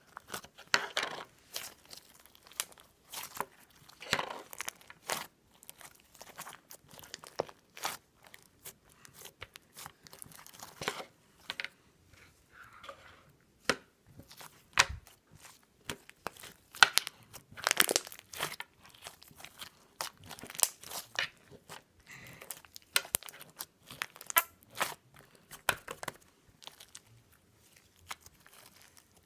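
Irregular crinkling and crackling, a run of sharp uneven crackles with brief pauses between them.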